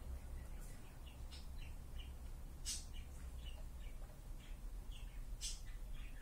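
Small birds chirping in short, scattered calls over a low steady rumble, with two sharp clicks about three seconds apart.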